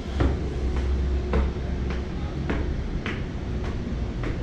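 Footsteps climbing a stairway, a short knock about every half second to two thirds of a second, over a low rumble during the first second and a half.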